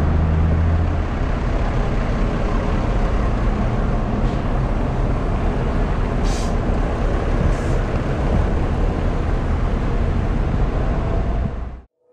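Steady outdoor vehicle noise, an even rumble and hiss of engines and traffic, with a deeper engine hum in the first second. It cuts off abruptly near the end.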